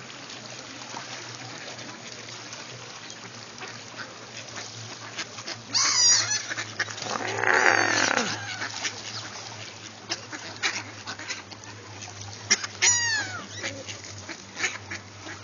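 Water birds, among them a flock of mallards, calling a few times over a faint steady background: a short high call about six seconds in, a louder call around eight seconds, and a call falling in pitch around thirteen seconds.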